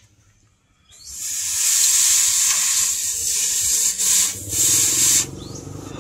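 Hot steel knife blade quenched in a trough of water, hissing loudly as the water flashes to steam: the hardening quench. The hiss starts about a second in and eases off after about five seconds.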